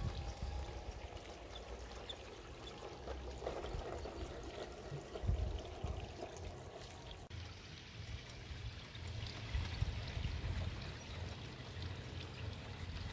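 Garden pond water trickling and pouring steadily, under the low rumble of a G-scale LGB model train running along the track. The sound changes abruptly about seven seconds in.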